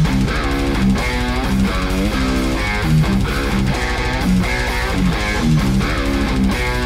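Background music of strummed guitar with a steady rhythm.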